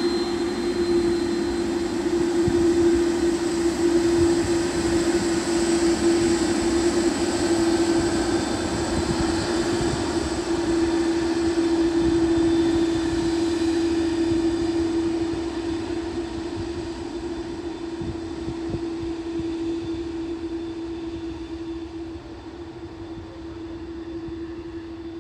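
Jet engines of a FedEx cargo jet rolling along the runway: a steady drone with a strong hum under broad jet noise. It is loudest in the first half and fades gradually as the aircraft moves away.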